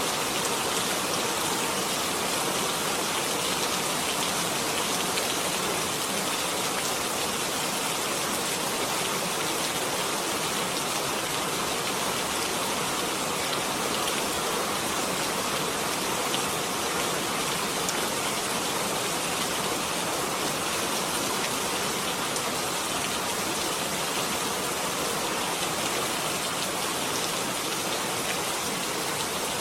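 Steady rain falling, an even hiss of countless drops on a surface with no gusts or breaks.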